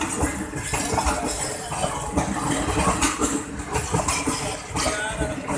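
Passenger coaches of an express train rolling past at close range: a steady rumble with irregular clicking and clanking from the wheels running over the rails.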